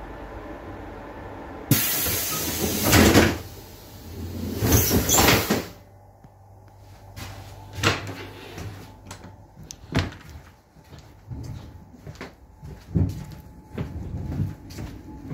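Passenger train's door closing: a sudden loud rushing noise about two seconds in, and another a couple of seconds later. These are followed by scattered knocks and clunks, with the train's low steady hum underneath.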